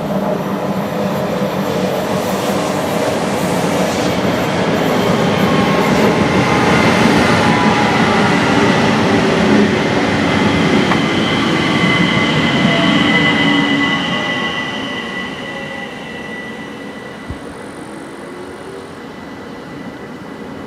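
ÖBB class 4024 Talent electric multiple unit passing: steady rolling noise builds, peaks and then fades away. From about halfway through, a high wheel squeal is held as the train leaves, the squeal that gives the train its nickname "Quietschie".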